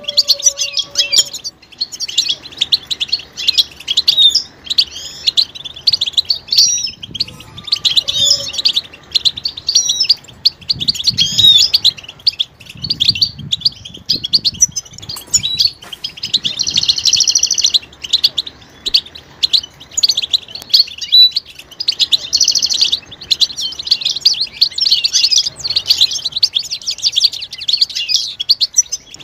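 European goldfinches twittering and singing, a continuous fast chatter of high, warbling notes with hardly a pause. These are the goldfinch's mating and readiness calls.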